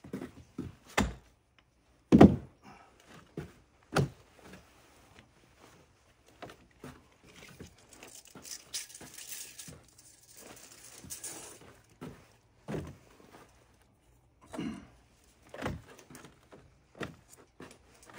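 Irregular knocks and thuds, as of hard objects being handled and set down, the loudest about two seconds in, with a rustling scrape for a few seconds around the middle.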